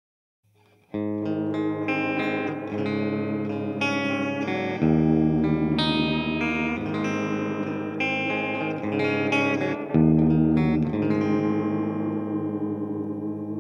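Electric guitar played through a Smiletone Flying Monkey digital modulating delay pedal on its hard pitch-shift setting. It comes in about a second in, plays notes and chords with strong new chords struck twice, and the last chord rings on and fades with a wavering pitch near the end.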